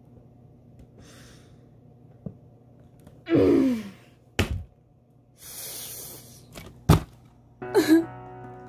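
A person's long sigh, falling in pitch, then two sharp knocks and a rustle of a cardboard toy box being handled; music starts near the end.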